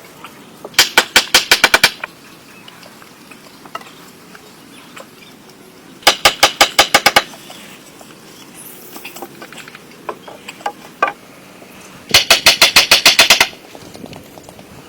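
Three bursts of rapid, evenly spaced sharp knocks, about eight a second, each burst lasting a little over a second, with a few single clicks between them.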